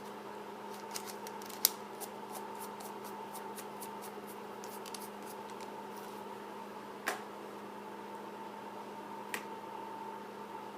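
Small metallic clicks and ticks of a mechanical vape mod's threaded parts being handled and screwed together, with a sharper click about a second and a half in and two more single clicks later. A steady background hum runs underneath.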